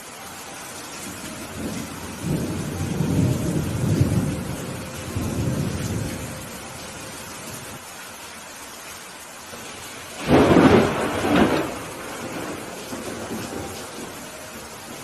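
Steady rain with thunder: a low rolling rumble in the first few seconds, then a sudden, louder, sharper thunderclap about ten seconds in that rolls for a second or two.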